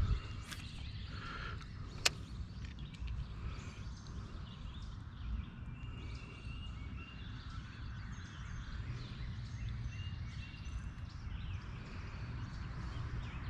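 Outdoor ambience of a steady low rumble, with birds chirping now and then and a single sharp click about two seconds in.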